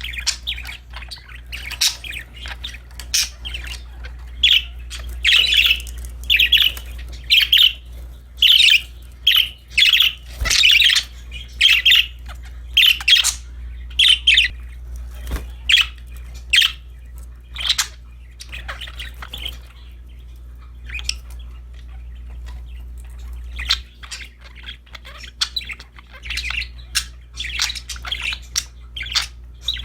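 Budgerigars chirping in a rapid run of short, high calls that thin out around the middle and pick up again near the end, over a steady low hum.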